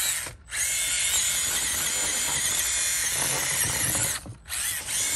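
Electric motor and geared drivetrain of a Losi Night Crawler SE 1/10 scale RC rock crawler whining steadily under throttle, cutting out briefly twice when the throttle is let off, about half a second in and near the end.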